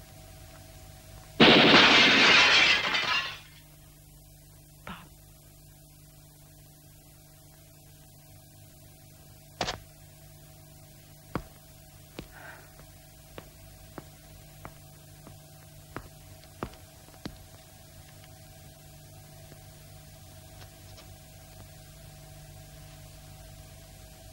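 A loud crash of breaking, like something shattering, starting just over a second in and lasting about two seconds, over a steady hum. A few faint sharp knocks and clicks follow later.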